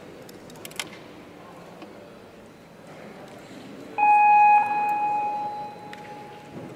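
A single electronic signal tone, one steady pitch with overtones, comes in suddenly about four seconds in, sounds loud for about half a second, then fades away over about a second and a half: the tournament's shooting-time signal telling the archer to begin his end.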